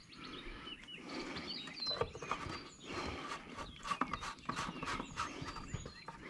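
Scattered light knocks and clicks of handling, with birds chirping.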